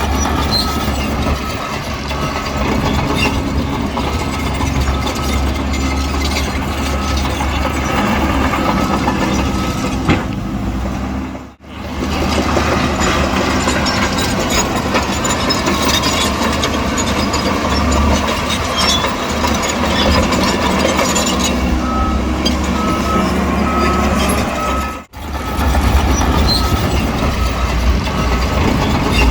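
Heavy diesel engines of a bulldozer and dump trucks running steadily, with a deep rumble. Later on a reversing alarm beeps about five times, roughly two beeps a second. The sound drops out briefly twice.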